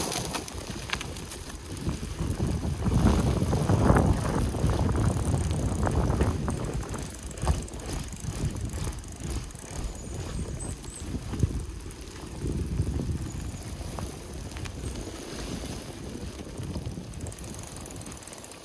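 Old mountain bike on Maxxis DTH tyres being ridden: tyres rolling over the ground with irregular rattles and knocks from the bike, and wind buffeting the microphone. It is louder over the first six seconds or so, then quieter.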